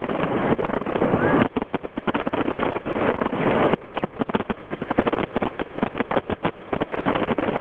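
Fireworks exploding in rapid succession: a dense barrage of bangs and crackling, thickest in the first second and a half and again about three seconds in.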